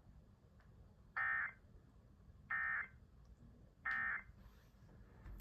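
Three short Emergency Alert System SAME data bursts, the end-of-message code that closes a NOAA Weather Radio warning, each about a third of a second long and about 1.3 seconds apart, over faint radio hiss.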